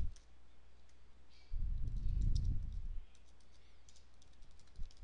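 Typing on a computer keyboard: a scattered run of light key clicks. A low, muffled rumble runs for about a second and a half partway through.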